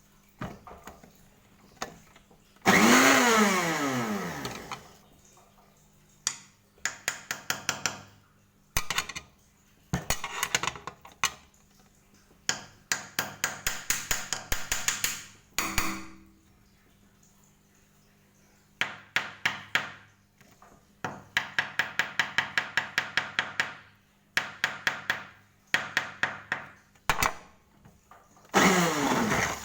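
A string of separate workshop tool sound effects. About three seconds in, a motor whines and falls in pitch as it winds down. After that come repeated short bursts of fast, evenly spaced mechanical strokes, like a ratchet or a rapid-fire tool, with brief quiet gaps between them.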